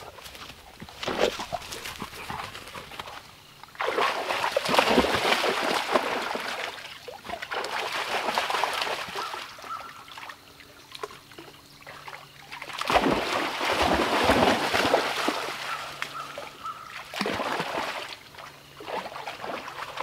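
A dog wading and splashing in a shallow creek, with water sloshing in loud spells, the first starting about four seconds in and the second about thirteen seconds in.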